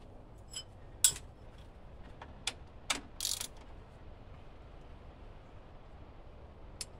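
Metal clicks and clinks of a wrench being fitted onto the serpentine belt tensioner, the sharpest about a second in, with a short scrape a little after three seconds.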